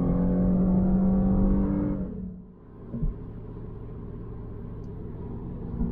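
Car cabin noise at highway cruising speed: a steady engine and road drone with a few held tones. About two seconds in it drops away abruptly to a quieter, lower steady hum.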